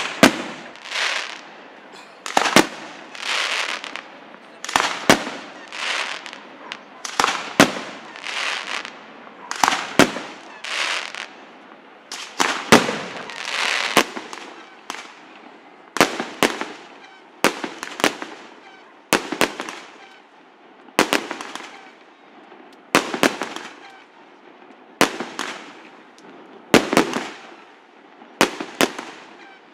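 Aerial fireworks display: a steady series of sharp bangs, about one every second or two, each between hissing swells that rise and fade.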